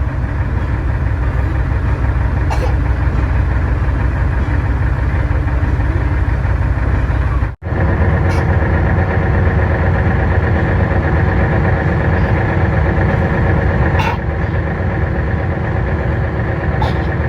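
Glass-bottom boat's engine running steadily, a constant low rumble with a steady drone above it. The sound cuts out for an instant about seven and a half seconds in, then carries on.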